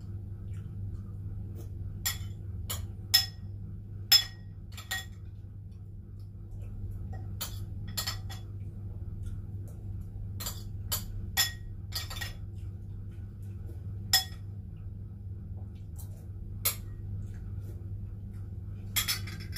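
Metal spoon clinking against a bowl of cereal and milk, sharp clinks at irregular intervals as it scoops, over a steady low hum.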